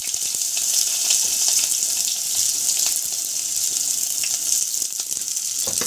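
Chopped red onion sizzling in hot oil in a cooking pot: a steady high hiss with fine crackling, the onion frying to be browned for rice.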